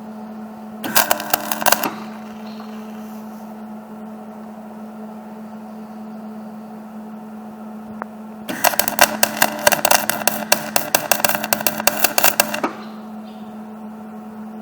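Electric arc welding: two runs of sputtering arc crackle, a short one about a second in and a longer one of about four seconds past the middle, over a steady hum.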